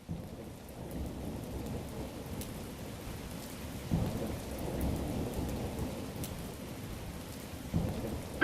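Steady rain falling with rolling thunder, the rumble swelling about halfway through and again near the end.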